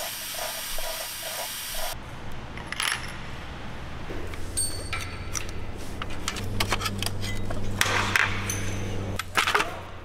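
Metal parts and tools clinking and clattering as an oil filter housing is taken apart over a metal drip tray, with short ringing metallic clinks. A steady hiss fills the first two seconds, and a low hum runs underneath from the middle to near the end.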